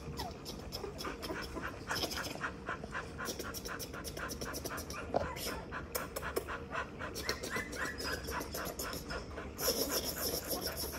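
Young red-nose pit bull puppy panting close to the microphone: quick, even breaths several times a second.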